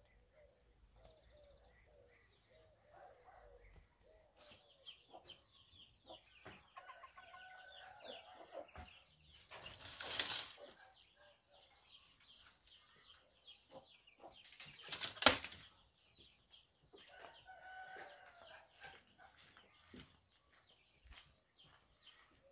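Chickens clucking with many short calls, faint overall, and two louder brief rustling bursts about ten and fifteen seconds in.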